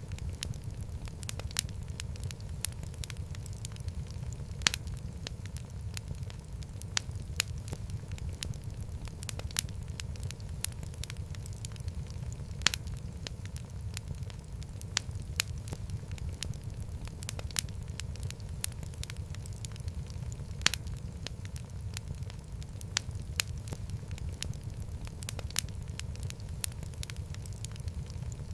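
Wood fire crackling in a fireplace: irregular sharp pops and snaps over a steady low rumble of the flames, with a few louder pops about five seconds in, near the middle and about two-thirds through.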